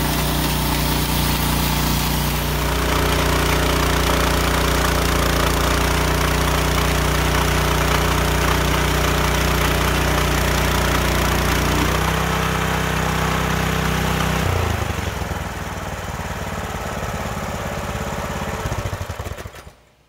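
Gasoline engine of a Hudson Hunter band sawmill running steadily under load as the band blade cuts lengthwise through a log. About fifteen seconds in, its steady tone drops away and it runs quieter as the cut ends, then the sound fades out.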